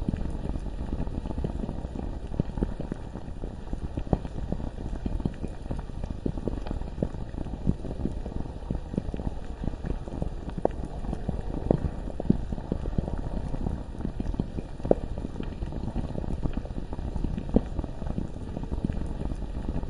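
Bubbling lava ambience: a steady low rumble with thick bubbles popping at irregular moments throughout.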